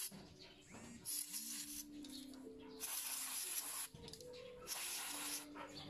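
Aerosol cleaner sprayed through a thin red extension straw in short hissing bursts, each about half a second to a second long, three or four times with pauses between. It is being sprayed onto a throttle body and idle air control valve to loosen carbon build-up.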